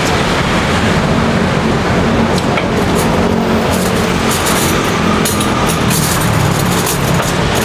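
Steady roadside traffic noise from vehicles running along a busy street, with a few light clicks and clinks from bowls and utensils at the food stall.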